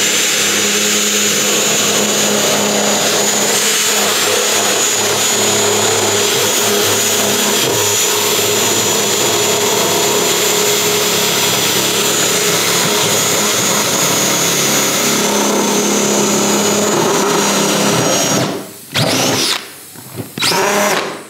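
Cordless drill with a cutter bit running steadily as it routes a slot through a cracked plastic car bumper, widening the crack to give more bonding surface for adhesive. It stops about 18 seconds in, followed by two short bursts that rise and fall in pitch near the end.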